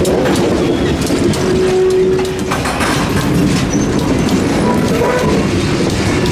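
A freight train rolls past close by: a diesel locomotive followed by loaded covered hopper cars, the wheels clattering over the rails, with a short squealing tone about two seconds in.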